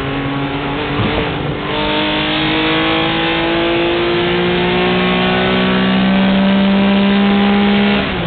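1967 Porsche 911 S race car's air-cooled flat-six pulling hard under full acceleration, heard inside the cabin. After a gear change about a second and a half in, the revs climb steadily in one gear, then drop with another upshift near the end.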